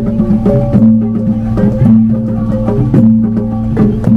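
Gamelan ensemble playing: struck gongs and metallophones in a steady repeating pattern, their pitched tones ringing on between strikes.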